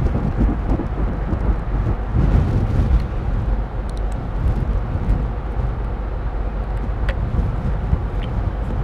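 Steady low rumble of factory room noise, with a few faint light clicks as a screwdriver and small parts are handled inside the robot's arm housing.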